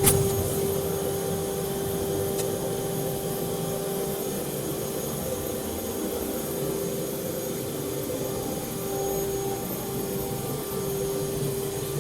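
CNC router's 9 kW HSD air-cooled spindle running, giving a steady whine over a steady rushing noise, with a sharp knock right at the start and a faint tick a couple of seconds later.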